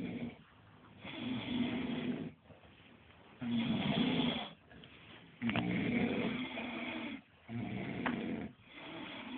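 Sleeping people snoring: about five rasping snores, each a second or so long, coming in an uneven rhythm with short pauses between them.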